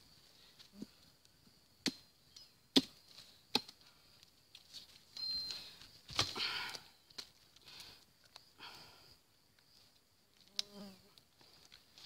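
Dry leaves and twigs on the forest floor rustling and snapping as someone moves about a small campfire: a few sharp snaps between two and four seconds in, the loudest near three seconds, and a longer rustle around six seconds. Insects buzz steadily throughout.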